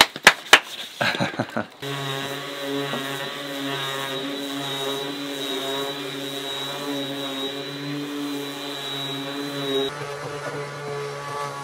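A few sharp hand claps, then an orbital sander running steadily against a wooden plank with an even droning whine. Near the end the sound cuts to a different power tool motor whose pitch rises slightly.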